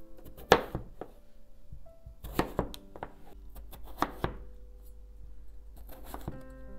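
Chef's knife cutting through peeled raw potatoes and striking a wooden cutting board: a few sharp chops, the loudest about half a second in, then pairs of quick cuts around two and a half and four seconds, with one more near the end. Background music with held keyboard notes runs underneath.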